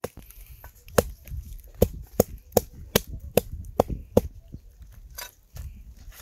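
Knife chopping on a cutting board: a steady run of about eight sharp chops, roughly two and a half a second, fading to lighter taps after about four seconds.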